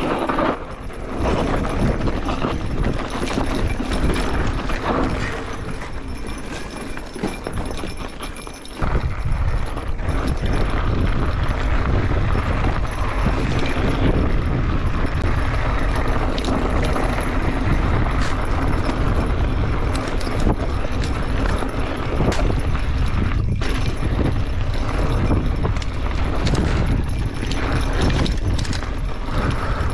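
Mountain bike riding down a rocky dirt singletrack: the bike and its handlebar bags rattle and clatter over the bumps while the tyres crunch on dirt. From about nine seconds in, heavy wind rumble on the handlebar-mounted microphone joins it.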